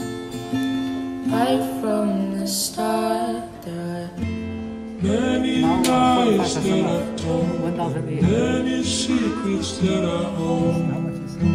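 Background music: strummed acoustic guitar with a singing voice.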